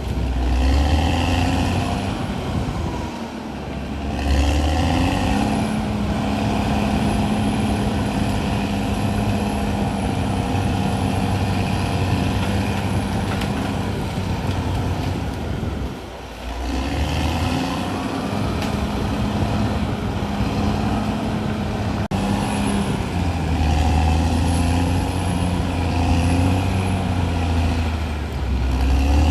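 CAT D6R XL bulldozer's diesel engine working under load, its note rising and falling as the load changes, easing off briefly about three seconds in and again about halfway through.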